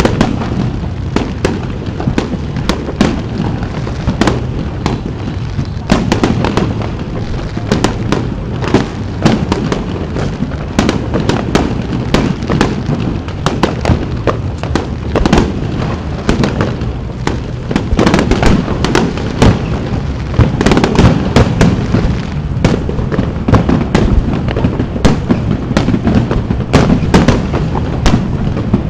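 Fireworks display: aerial shells bursting one after another in a fast, unbroken run of bangs and crackles over a constant low rumble, the bursts coming thicker in the second half.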